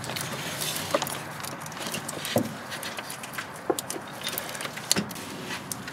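Hands working a replacement alternator into its mounting bracket in a car's engine bay: scattered light metal clicks and knocks with rustling of the plastic wiring looms.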